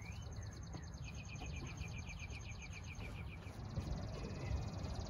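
Songbirds outside: a fast trill of rapidly repeated notes, with a few short rising chirps, over a low rumble.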